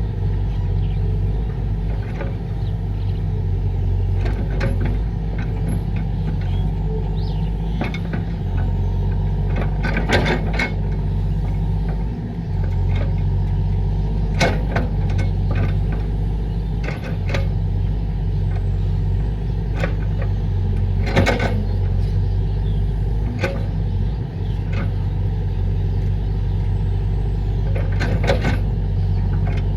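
Excavator's diesel engine running steadily under work, with a handful of sharp knocks from the machine, about four over the stretch.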